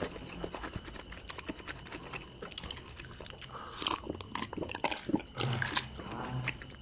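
Close-miked mukbang eating sounds: chewing and wet mouth smacking on a mouthful of food, then drinking from a glass about four seconds in.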